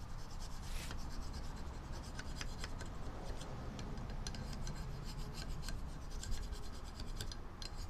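Small screwdriver scraping inside a metal carburetor float bowl, scratching and rasping in short, irregular strokes as it works loose varnish deposits left by old, stale gasoline.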